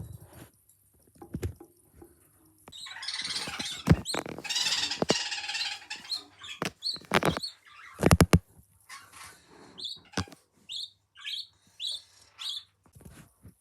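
Budgerigar chicks cheeping: a dense raspy chorus for about three seconds, then a run of short, separate chirps near the end. Several loud knocks land in between, the loudest about eight seconds in.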